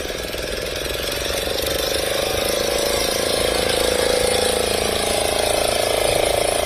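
Small boat engine on a long-shaft (long-tail) propeller running with a rapid, even beat, growing louder about two seconds in as the propeller churns the water.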